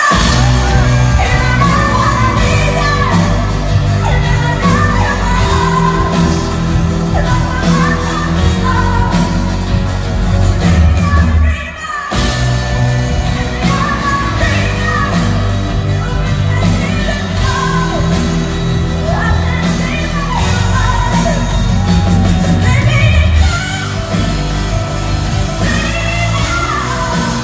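Live rock band playing loudly in a concert hall, a singer's voice over drums, bass and guitar; the music drops out for a moment about twelve seconds in and picks up again.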